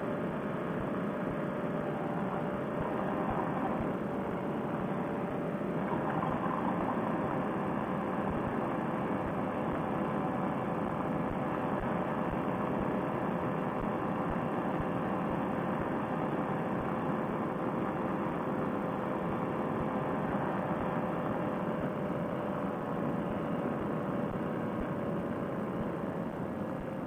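Fresh Breeze Monster paramotor engine and propeller running steadily at cruise power in flight, mixed with wind rush.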